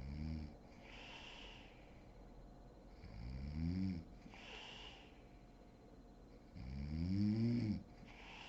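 A sleeping woman snoring, with a rasping snore on each in-breath about every three and a half seconds and a breathy out-breath between them.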